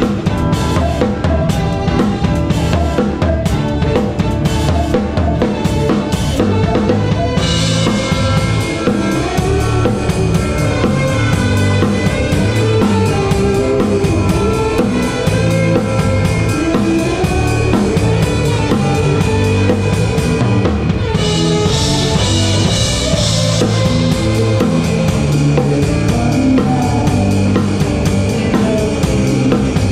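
Live band playing, heard from beside the drum kit: the drums are close and loud, with kick drum, snare and rimshots over bass and other instruments. A brighter cymbal wash comes in about seven seconds in.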